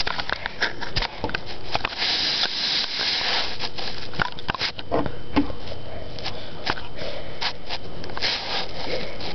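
A cat pawing and scratching at a door, a run of irregular scrapes and sharp clicks, with a breathy hiss about two seconds in.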